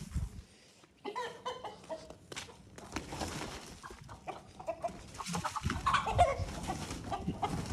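Aseel rooster clucking in short, repeated calls as it is chased off, with the swish of a jute sack being flapped at it.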